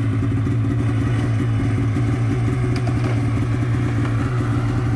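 Arctic Cat mountain snowmobile's two-stroke engine running steadily at a low idle, with a constant low hum.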